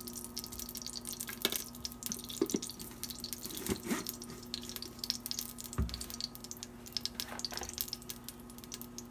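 Ghee melting and lightly sizzling with a fine, steady crackle in a heated stainless steel Instant Pot insert, with a metal spoon knocking against the pot a few times in the first half.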